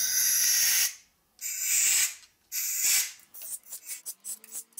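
Compressed air hissing through a nozzle in a series of blasts, blowing thread-chasing debris out of a wheel hub's threaded holes: three longer blasts, then a run of short quick bursts from hole to hole.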